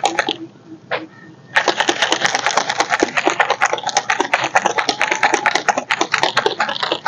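Plastic protein shaker bottle being shaken hard to mix plant protein powder into water, its contents rattling in a fast, even rhythm. The shaking stops briefly near the start, then resumes about a second and a half in.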